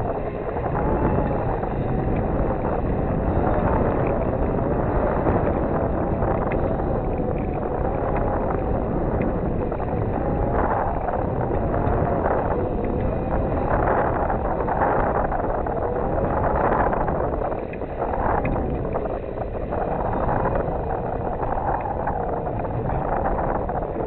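Steady wind rushing over a microphone mounted high on a sailboat's mast, with a faint tone that wavers up and down.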